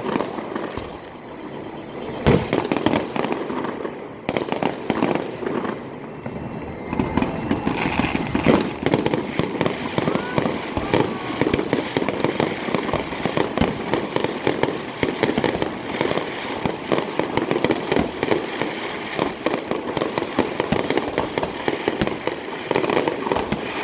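Fireworks exploding: a few separate loud bangs in the first seconds, then from about seven seconds in a dense, unbroken barrage of bangs and crackles.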